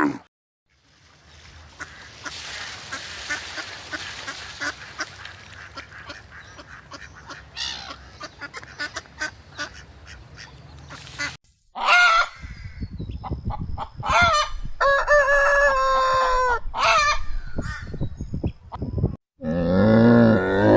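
Geese honking in a series of loud, nasal calls from about halfway in. Before that comes a stretch of steady rustling noise with scattered small clicks.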